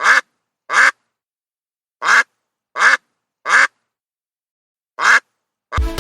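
An animal calling: six short calls, one right at the start, one about a second in, three close together around two to four seconds in, and a last one about five seconds in, with silence between them.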